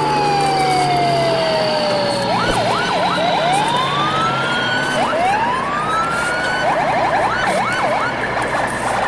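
Added cartoon-style whistle sound effects. A long falling glide comes first, then a quick burst of up-and-down warbles, two long rising sweeps, and another run of fast warbles near the end, all over a steady noisy background.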